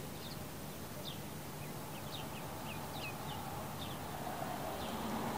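Black Swedish ducklings peeping: short, high, falling peeps, two or three a second, scattered.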